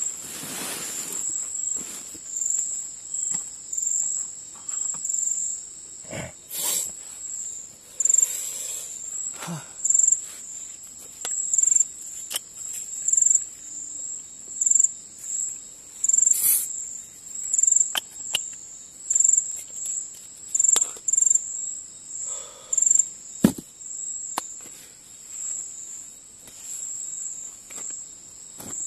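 Crickets chirping in a steady high-pitched trill that pulses a little faster than once a second. Scattered clicks and rustles of gear being handled sound close by, with one sharp knock a little after the middle.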